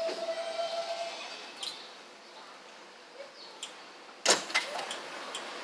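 A subway train of R160 cars standing at the platform: a steady tone from the train cuts off about a second in. About four seconds in there is a sharp clunk and a few smaller clicks as the sliding doors open.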